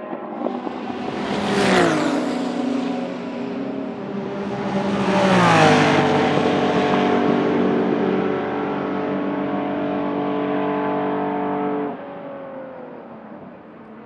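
Historic endurance racing cars passing at speed, two in quick succession, each engine note sweeping down in pitch as it goes by, about two seconds and five and a half seconds in. A steady high engine note hangs on as the cars run away down the straight, then drops off sharply near the end.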